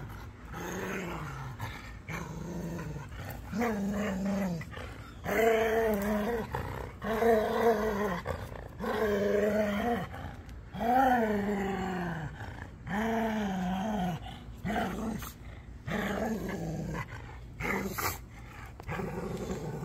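Dogs growling in play during a tug-of-war over a stick: a string of long, wavering growls, one every second or two, with scuffling between them.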